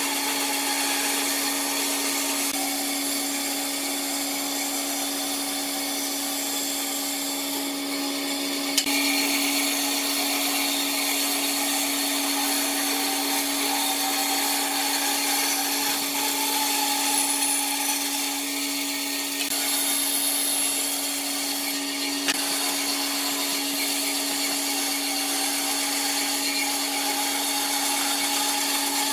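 Bandsaw running with its blade cutting through a wooden board: a steady motor hum under the hiss of the blade in the wood. Two sharp clicks, one about nine seconds in and one a little past twenty seconds.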